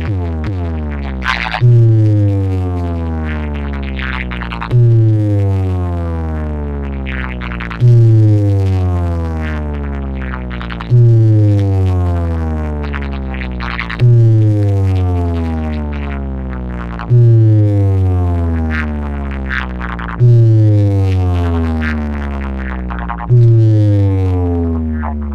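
Electronic DJ remix played through a bass speaker cabinet: a deep bass tone that falls in pitch, hitting suddenly about every three seconds and fading before the next, eight times over.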